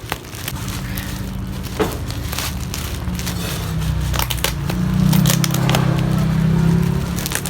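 Packaging being handled and opened, with irregular crinkling and crackling. A low steady hum swells under it from about three seconds in until near the end.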